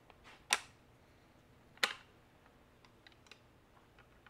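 Sharp clicks of a bent wire stand being fitted into a string trimmer's plastic guard: two louder clicks about a second and a half apart, then a few faint ticks.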